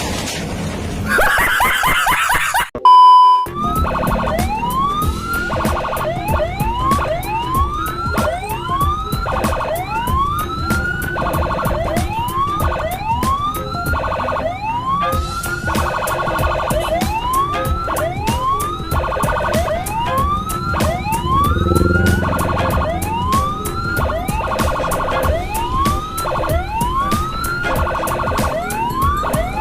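Electronic siren sounding a repeating rising whoop, about one sweep a second, over a steady low rumble. A short, loud, steady beep comes about three seconds in, before the whooping starts.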